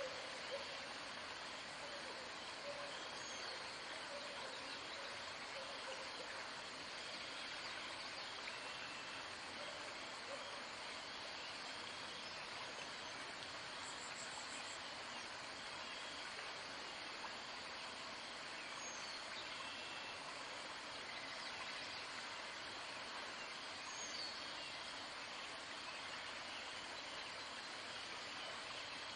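Steady outdoor background hiss with faint short high chirps now and then.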